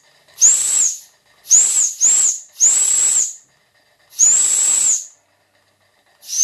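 Steam whistle on a Märklin 16051 toy steam engine, blown in six short blasts over a rush of steam hiss. Each blast is a high-pitched tone that slides up and then holds. The second and third come close together, and the last begins near the end. It is so loud it is enough to give anybody tinnitus.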